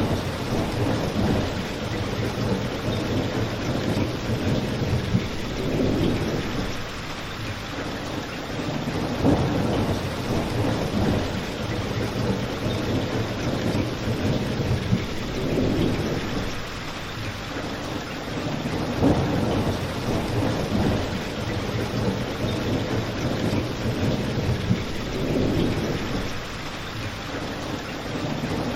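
Steady heavy rain, with low rumbling swells every few seconds and an occasional sharp pop from a crackling wood fire.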